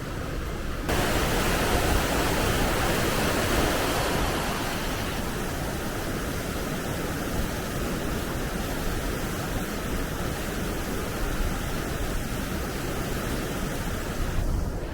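Steady rush of flowing water. It starts suddenly about a second in, is loudest for the first few seconds, then settles, and cuts off suddenly near the end.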